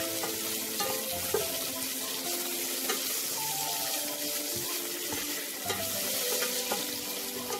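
Oil sizzling steadily as curry leaves, dried red chillies and garlic fry in a stainless steel pan, stirred with a spatula that gives a few light scraping ticks. Soft background music plays underneath.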